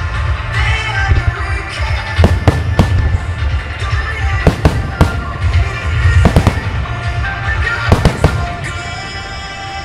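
Japanese aerial firework shells bursting: about eight sharp bangs in twos and threes, each with a rumbling echo, over loud music that accompanies the display.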